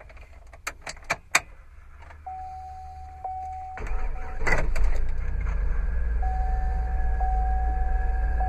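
A few sharp clicks, a thin steady whine as the ignition comes on, then the 2004 Hummer H2's 6.0-litre Vortec V8 with a Flowmaster exhaust cranks and catches about four seconds in. It flares briefly, then settles into a steady, low idle rumble.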